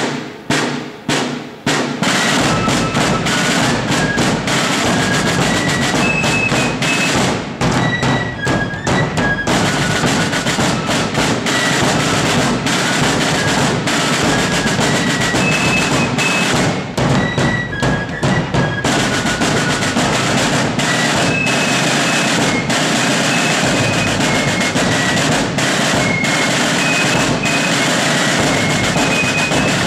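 Fife and drum corps playing a march: a few sharp drum strokes open it, then shrill fifes carry the melody over rope-tension snare drums and a bass drum.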